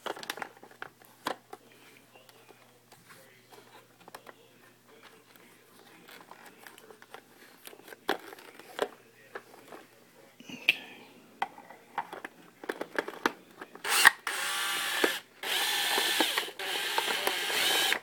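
Scattered small clicks and knocks of handling, then about 14 seconds in a power drill whirs in three short runs, its pitch stepping, driving out the last screw of the trolling motor's top cap.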